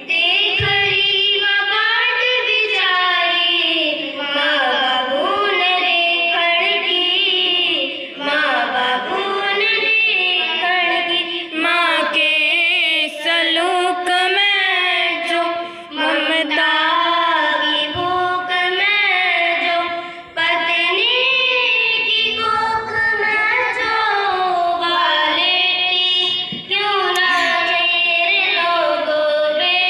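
Young girls singing a melodic song in long phrases. The singing breaks off briefly every several seconds for breath.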